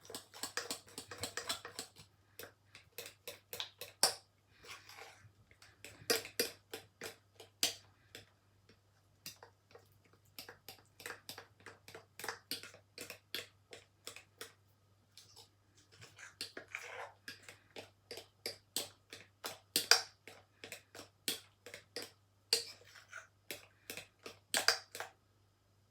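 Pancake batter being beaten by hand in a bowl, the utensil clicking and tapping irregularly against the bowl's sides, a few knocks a second with quicker runs. A faint steady low hum runs underneath.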